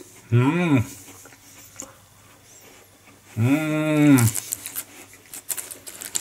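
A man's voice humming "mmm" twice, a short rising-and-falling hum and then a longer one, in appreciation of the cookie's taste. Near the end the clear plastic cookie tray crinkles and clicks under his hand.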